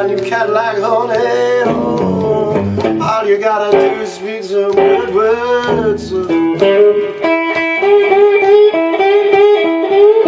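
Blues played on a Telecaster-style electric guitar: lead notes with string bends and vibrato over a repeating low bass-string figure, with pick attacks throughout.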